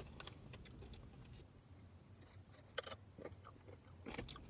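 Quiet eating sounds close to the microphone: faint chewing and mouth clicks, with one sharper click a little under three seconds in and a few short crackly strokes near the end.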